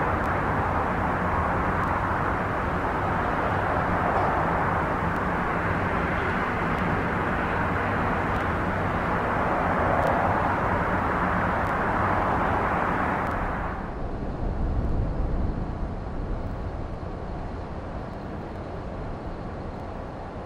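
Steady roar of urban vehicle ambience, an even wash of noise. About two-thirds of the way through it cuts abruptly to a quieter, lower rumble.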